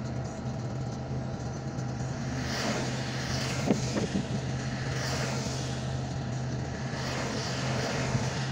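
Car engine idling with a steady low hum, heard from inside the cabin on a rainy day, with swells of hiss every two to three seconds from the windshield wiper and wet road. A single short thunk comes about three and a half seconds in, as the wiper sweeps.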